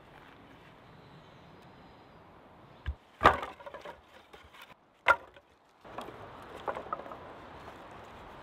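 Peeled wooden poles knocking and clattering together as they are laid onto a stack: a loud clatter about three seconds in, a sharp single knock about five seconds in, and a few lighter knocks near seven seconds.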